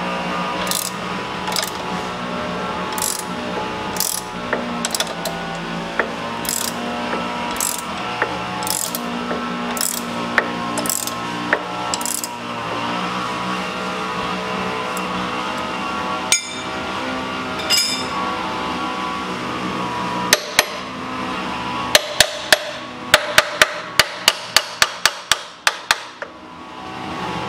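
Ratchet wrench clicking as it turns the screw of a press tool, pressing a new rubber-metal bushing into a lower engine mount. The clicks come about once a second, then near the end a quick run of about four clicks a second. Background music plays throughout.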